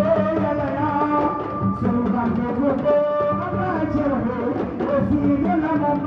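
Music: a singing voice over hand-drum percussion.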